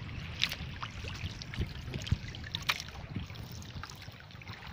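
Water sloshing and lapping against a small fishing boat's hull, with a few sharp clicks and knocks from handling on board.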